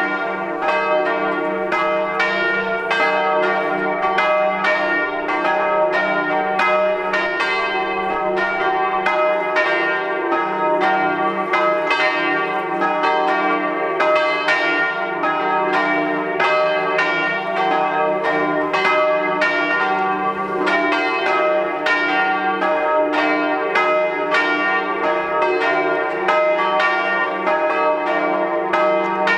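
Church bells from a tower of five bronze bells tuned to a diatonic scale on E-flat, swung and ringing together in a continuous peal. Strokes overlap at a steady few a second, their tones ringing into one another.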